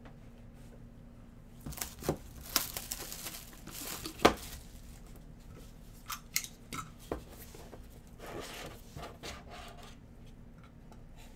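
Plastic wrap being torn and crinkled off a sealed Trinity football card box, with a sharp snap as it rips near the middle. After that come a few clicks and a softer rustle of cardboard as the box lid is worked open.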